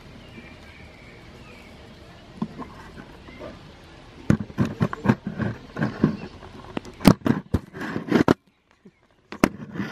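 Camera handling noise: loud knocks, bumps and rustling as the camera is picked up and moved about, starting a few seconds in. The sound drops out for about a second near the end, then a couple more knocks follow.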